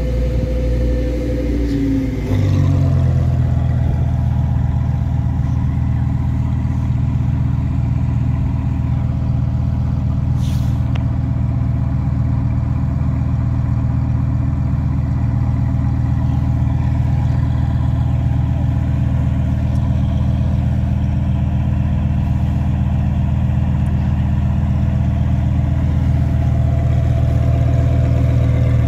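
Exotic sports car engine running steadily. About two seconds in, the engine note drops and gets louder, then holds even. A sharp click about ten seconds in.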